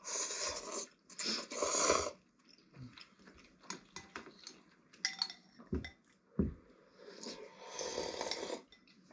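Noodles being slurped from a bowl, in noisy bursts near the start and again near the end, with light clicks of chopsticks against the bowl and a couple of soft low thuds in between.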